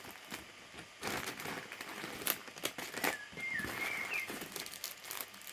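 Small plastic packets rustling and crackling in irregular clicks as they are handled and opened, with a faint high whistling chirp about three to four seconds in.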